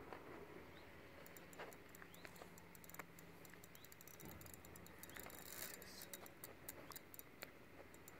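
Near silence: faint outdoor lakeside ambience with many scattered small ticks and clicks, busiest in the second half.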